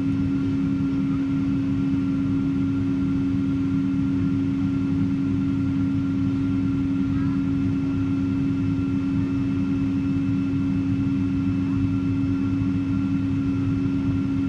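Steady drone inside a jet airliner's cabin as it taxis: a strong, unchanging hum from the engines over a low rumble, with fainter high tones above.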